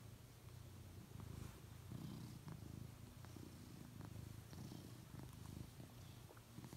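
Tabby cat purring softly while being stroked: a low rumble that swells and eases in slow pulses, about once a second.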